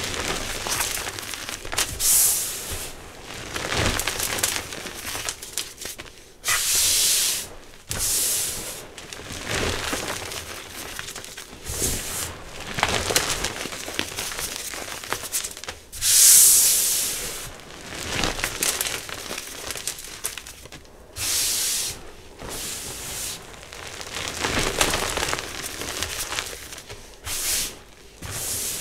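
Hands crushing, squeezing and rubbing loose powdered gym chalk, giving soft crunching and sandy hissing in irregular bursts every second or two, the loudest about sixteen seconds in.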